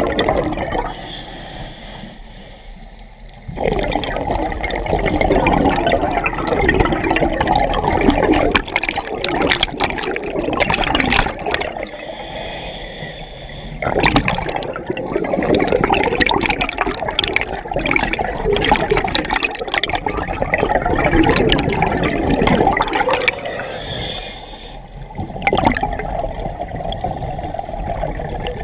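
A scuba diver breathing through a regulator, heard underwater right beside the mask: long stretches of loud exhaled bubbles gurgling past, broken three times by short, quieter spells as the diver breathes in.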